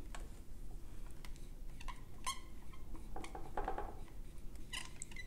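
Dry-erase marker writing on a whiteboard: faint squeaks and scratches in short strokes.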